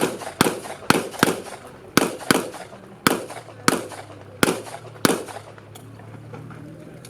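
Handgun shots fired in a quick string, about ten sharp reports in the first five seconds, several of them in close pairs, as in an IPSC practical-shooting course of fire. After the string the shooting stops.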